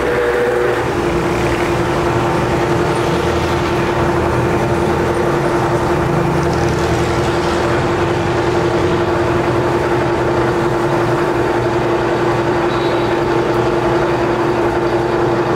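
Metal lathe running: a steady machine hum with a held tone that steps down slightly in pitch under a second in, then holds steady.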